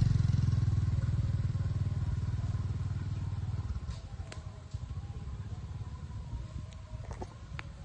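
A motor vehicle's engine drones and fades away over the first few seconds as it drives off, leaving quieter background with a few faint clicks.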